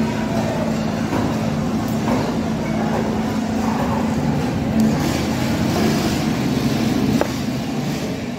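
A motor running with a steady, unchanging hum under busy, noisy background din and faint voices, with a short sharp knock about seven seconds in.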